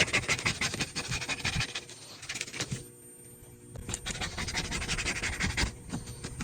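Rapid scratchy scrubbing of grime off a dirty iPad case, in two bouts with a short pause between.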